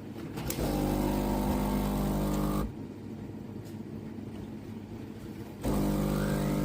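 Breville Bijou espresso machine's pump buzzing steadily for about two seconds, cutting off, then starting again about a second before the end. It runs while the machine is failing to make a second coffee, which the owner believes has stopped working.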